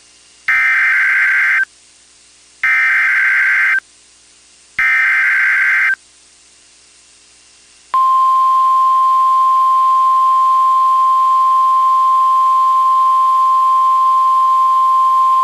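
Emergency Alert System SAME header: three identical warbling digital data bursts about a second long each, followed by the steady 1050 Hz NOAA Weather Radio warning alarm tone, which starts about eight seconds in and holds. Together they open a new alert broadcast, here a winter storm warning.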